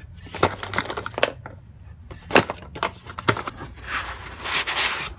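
Unboxing sounds: cardboard packaging and bundled cables handled, with a few sharp knocks and clicks, then a longer rustling scrape of foam packing being pulled near the end.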